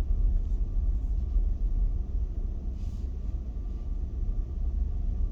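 Steady low road rumble of a car driving on pavement, heard from inside the cabin: engine and tyre noise with no sudden events.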